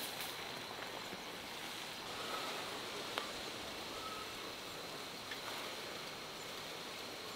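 Steady hiss of a large aluminium stockpot of water heating toward the boil. A sharp metallic click right at the start as the lid is lifted, another click about three seconds in, and a couple of faint bird chirps.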